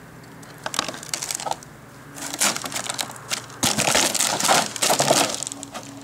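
Footsteps crunching and scuffing on bare, gritty rock close to the microphone, irregular and loudest in the second half.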